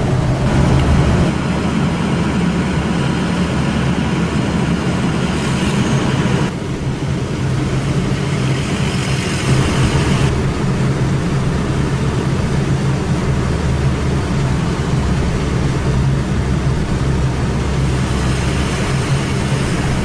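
Steady road and engine noise heard from inside a vehicle's cabin while driving. The sound shifts abruptly three times, where separate driving clips are joined.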